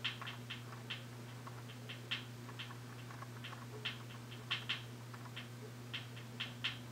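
Steady low electrical hum from a lit light fixture, with irregular small clicks and ticks over it, a few each second, some louder than others.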